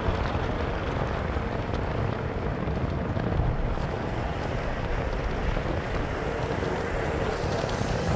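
Steady road and engine noise of a moving vehicle heard from inside, with wind rushing over the microphone.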